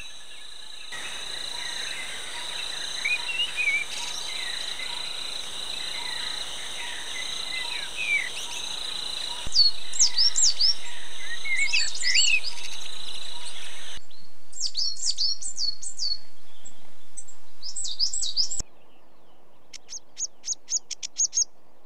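Several birds chirping and calling over a steady high insect drone, the background changing abruptly several times. Near the end, a quick run of short high notes.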